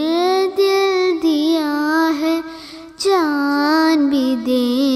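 A young girl singing a Hindi patriotic song with no accompaniment, holding long, sliding notes. Her voice drops away for a moment shortly before three seconds in and then comes back strongly.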